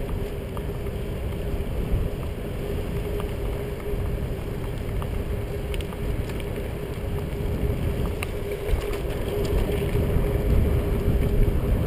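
Steady wind and road rumble on a GoPro HD Hero action camera carried on a moving road bicycle, with a faint steady hum and a few light clicks.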